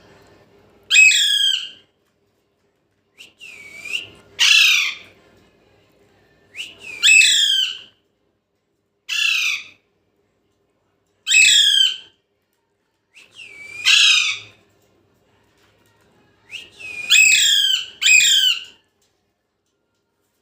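Pet parrot giving short, loud calls again and again, one every two to three seconds, with a quick pair near the end.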